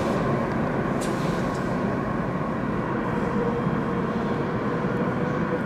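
Madrid Metro Line 3 train running in the underground station: a steady rumble with a motor whine that rises slowly in pitch over the last few seconds as the train gathers speed.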